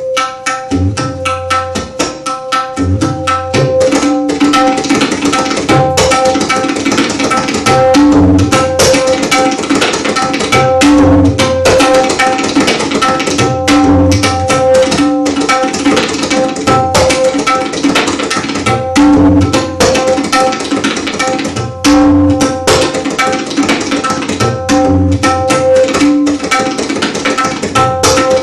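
Tabla played fast and densely: quick sharp strokes on the small right-hand drum (dayan) over a steady high ringing pitch, with repeated low strokes on the metal bass drum (bayan).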